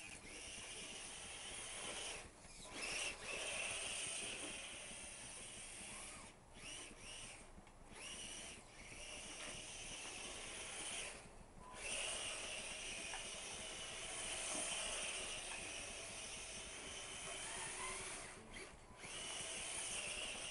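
Small electric motor and gears of a Tamiya Ford F-150 RC racing truck whirring as it drives through snow, rising and falling with the throttle and cutting out briefly several times.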